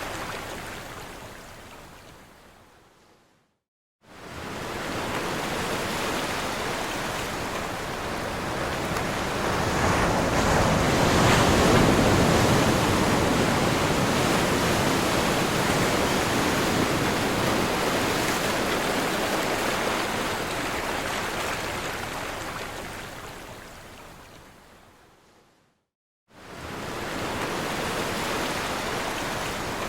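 Ocean waves crashing on a shore: a dense rush of surf that swells to its loudest a third of the way through. It fades out to a brief total silence about four seconds in and again near the end, each time starting up anew.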